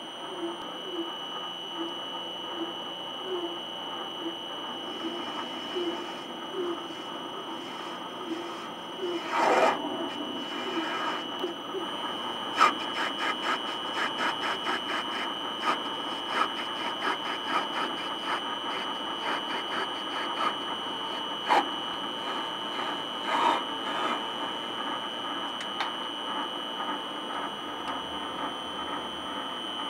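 Bench metal lathe running with a steady high whine while turning a small brass part held in a four-jaw chuck, with a quick run of ticks from the cut between about 12 and 24 seconds in and a few louder clicks.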